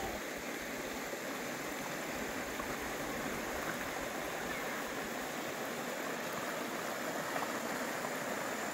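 A shallow rocky river rushing over riffles and around boulders, a steady, even rush of water.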